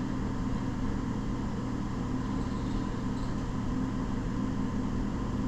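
Steady low mechanical drone with a constant hum, even throughout, with no distinct clicks or changes.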